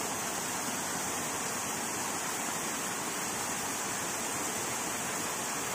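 Steady rush of flowing mountain water.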